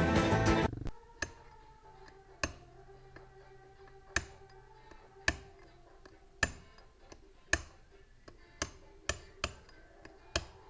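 Background music cuts off within the first second. Then about ten sharp hammer blows come roughly once a second, closer together near the end, as a bearing is driven into a Yamaha XT350 crankcase.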